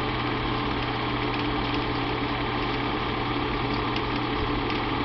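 Bell & Howell 8mm film projector running in rewind on motor only, lamp off, winding the film back onto the reel: a steady, even motor whir and hum.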